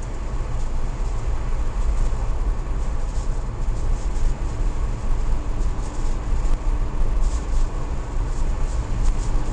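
Car driving slowly along a narrow road, heard through a dashboard camera inside: a steady low rumble of engine and tyres, with light high-pitched ticks from about three seconds in.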